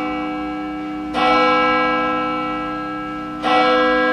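A church bell tolling. It is struck about a second in and again about three and a half seconds in, and each stroke rings on and slowly fades.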